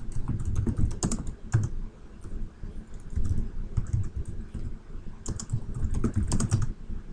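Typing on a computer keyboard: two quick runs of keystrokes, one at the start and another about five seconds in, with a few stray key clicks between.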